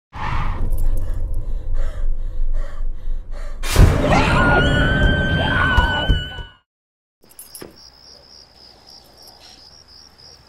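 Loud horror jump-scare soundtrack: a pulsing build, a sudden crash about four seconds in, then shrill held tones, cut off abruptly after about six and a half seconds. After a brief gap, crickets chirp steadily in quick, even, high-pitched pulses.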